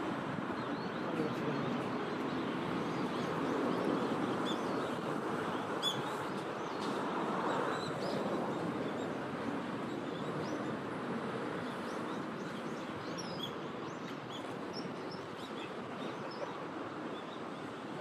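Steady outdoor background rush with many short, faint, high bird chirps scattered through it.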